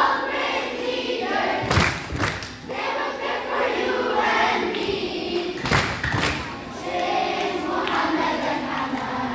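Children's choir singing, with a pair of low thumps about two seconds in and another pair about six seconds in.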